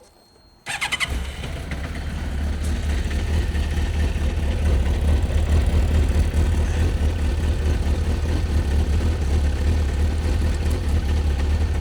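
2002 Suzuki GSX-R1000 K1's inline four-cylinder engine starting under a brief crank about a second in, then idling steadily through its standard exhaust can, with no exhaust leak to be heard.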